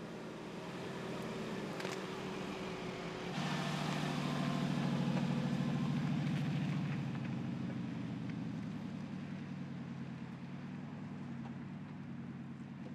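Mercedes-Benz G 500's 4.0-litre twin-turbo V8 running at low revs as the SUV crawls over a dirt off-road track, with tyre noise on the dirt. The engine note swells about three seconds in and slowly fades again.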